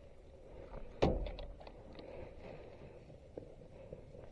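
A single heavy thud about a second in, with a low rumble after it, followed by a few faint clicks and taps.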